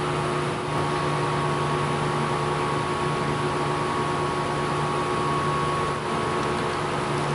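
Steady hum of a running machine in the workshop: a constant low drone with a thin, even whine above it.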